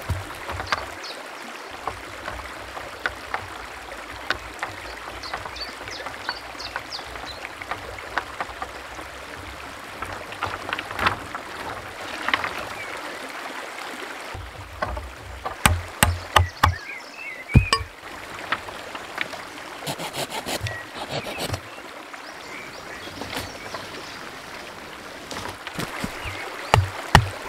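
A forest stream running steadily, with occasional bird chirps. A quick series of dull thuds about halfway through and again near the end, from a wooden stake being pounded into the earth.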